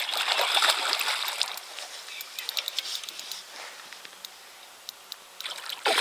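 A big hooked carp thrashing at the surface, splashing and churning the water. The splashing is loudest in the first second or so, eases off with a smaller burst around the middle, and flares up again near the end.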